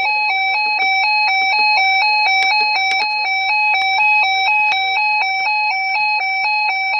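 Electronic emergency alert tone, buzzy and loud, alternating rapidly and evenly between two pitches: the attention alarm that comes before a new weather alert message is read.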